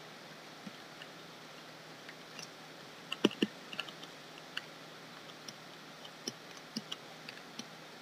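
Scattered light clicks and taps of a pen stylus working on a graphics tablet during quick sketching, irregular and unhurried, with a louder pair of taps a little after three seconds over faint room tone.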